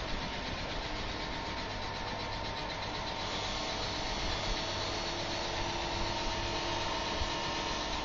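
Biomass gasifier charcoal machinery running steadily: a continuous machine hum with several steady tones over a noisy bed.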